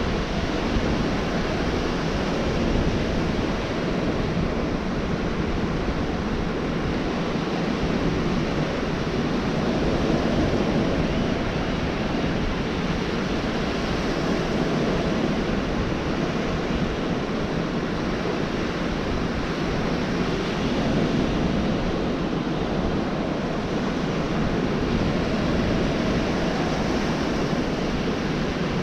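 Gulf of Mexico surf breaking on a sandy beach: a steady wash of waves that swells and eases every several seconds.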